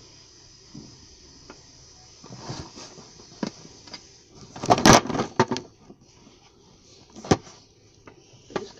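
Scattered knocks and clatter from handling at a table, with the loudest cluster about five seconds in and single knocks after it; faint steady hiss in the quiet opening seconds.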